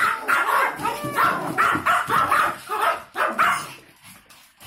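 Pomeranian spitz dogs barking in a rapid run, about three barks a second, stopping about three and a half seconds in.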